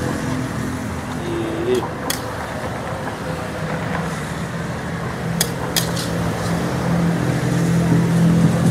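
Steady road traffic noise, with a vehicle engine hum swelling in the last few seconds. Over it come a few sharp clinks of a metal ladle against the wok and plate as the soupy noodles are dished up.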